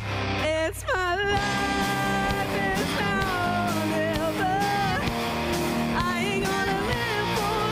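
Live rock band playing, with a lead melody line sliding and bending in pitch over sustained chords.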